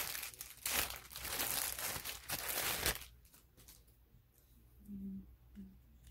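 Clear plastic packaging crinkling and rustling as a product is worked out of its bag, for about three seconds, then stopping; a few light clicks of plastic parts being handled follow.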